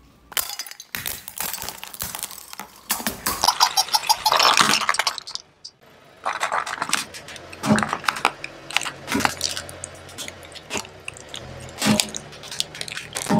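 Plastic being crushed under a slowly rolling car tyre: a run of sharp cracking and crunching, densest a few seconds in, as a row of pineapple-shaped plastic cups breaks. After a brief pause, separate loud snaps follow as a hollow plastic toy gives way.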